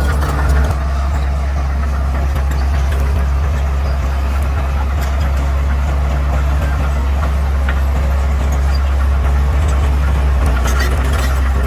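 Bulldozer's diesel engine running steadily with a deep, even hum, with scattered light clicks and crackles over it, more of them near the end.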